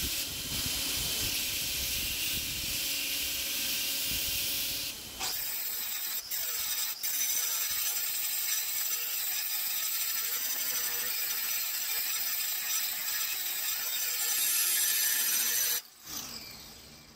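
A 2x72 belt grinder running with a steel-and-copper billet pressed against the belt, grinding off weld and mild steel to expose the copper layers. About five seconds in it gives way to an angle grinder's disc grinding the flat of the blade, a steady grinding with a thin motor whine, which stops near the end.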